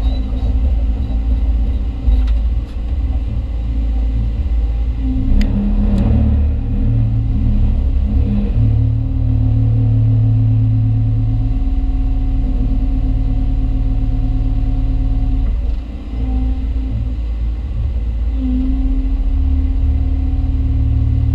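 Hyundai Robex 220-9A LC excavator's diesel engine running steadily under hydraulic load, heard from inside the cab, its pitch and loudness shifting slightly as the boom and bucket work. A few sharp knocks come through about two, five and six seconds in.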